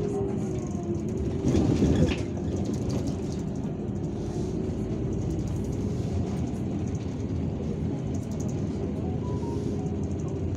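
Cabin noise of an Irisbus Citelis 12M city bus under way: a steady rumble of engine and road, with a brief louder clatter about a second and a half in.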